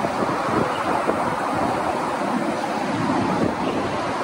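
Steady rushing of wind on the microphone.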